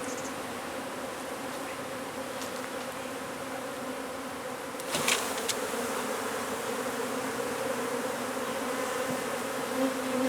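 A mass of honey bees buzzing as a steady, even hum. About halfway through there is one short, sharp crack, and after it the buzzing is a little louder.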